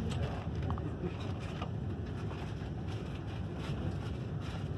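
Steady low rumble of a RailJet passenger coach running on the rails, heard from inside the coach, with a few faint ticks.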